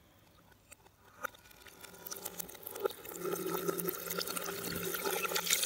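Water pouring from a glass into a stainless-steel sink, played in reverse: the splashing builds up steadily and then cuts off suddenly near the end.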